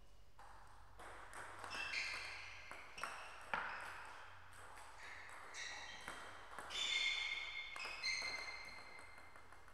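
Table tennis rally: the ball clicking off the bats and the table, a string of hits starting about a second in, with high squeaks of shoes on the sports floor between them. The sharpest click comes near the middle, and the rally ends shortly before the end.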